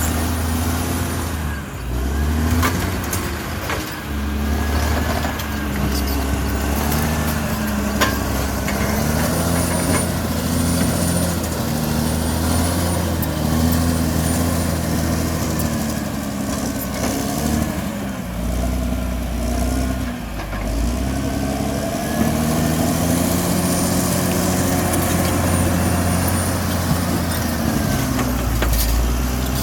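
Bulldozer's diesel engine running under load, its pitch rising and falling again and again as it pushes soil, with scattered metallic clanks and a sharp knock about eight seconds in. A faint high whine comes and goes.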